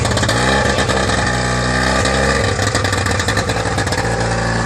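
Two-stroke twin-cylinder engine of a 26 hp Trabant race car running, its revs rising and falling in the first couple of seconds over a steady low drone.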